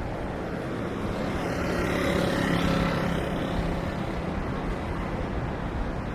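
A motor vehicle passes close by on the street, its sound swelling to a peak about halfway through and then fading, over a steady background of traffic noise.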